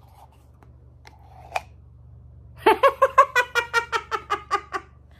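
A woman's rapid high-pitched laugh, about fifteen short bursts in two seconds, after a single click.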